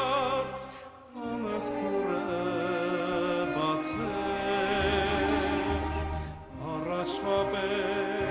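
A song: a singing voice with wide vibrato over instrumental accompaniment, with a few short high strokes. The music drops away briefly about a second in and again about six and a half seconds in.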